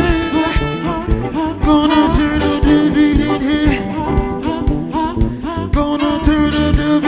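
A live band playing a song, with a lead vocal over guitar and a steady drum beat.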